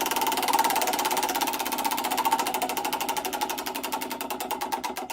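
Lamborghini Diablo's V12 engine running with rapid, even exhaust pulses that gradually slow and fade as the revs fall away.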